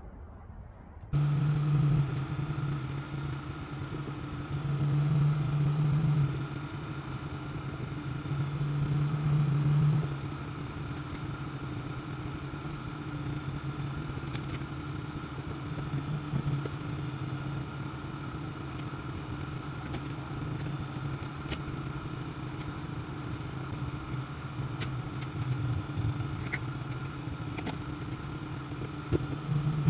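Pickup truck engine idling steadily, starting about a second in, with a few faint metallic clicks and clanks from a trailer hitch being coupled.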